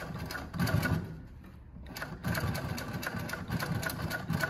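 JUKI LU-2810 triple-feed walking-foot lockstitch industrial sewing machine stitching through a thick stack of fabric layers, in rapid, even stitches. It runs briefly, eases off for about a second, then runs again steadily.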